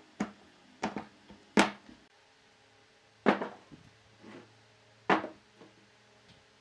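Sawn log sections knocking against a wooden workbench as they are lifted, set down and shifted: a string of separate wooden knocks, the loudest about one and a half seconds in, with others around three and five seconds in.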